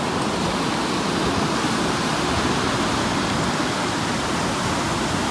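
Steady wash of surf breaking on a sandy beach, an even rushing noise with no distinct strokes.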